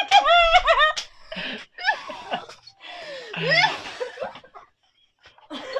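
A group of people laughing: a quick run of high-pitched laughs in the first second, then further bursts of laughter that briefly die away near the end.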